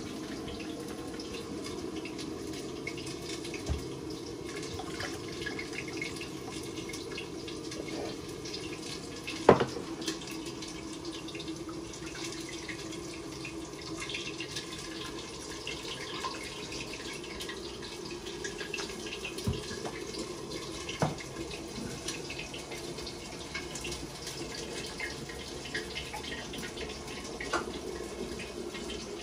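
Water running steadily from a kitchen tap into a sink, with scattered clinks of dishes; one sharp clink about nine and a half seconds in.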